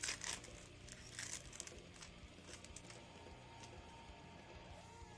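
Trading card pack wrappers crinkling and cards being handled, with a few brief rustles in the first two seconds, then fainter handling.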